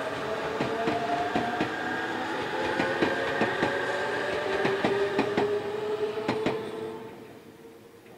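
Tobu 100 series Spacia electric express train running past and away: wheels clacking over rail joints, with a whine that slowly falls in pitch. It fades out about seven seconds in.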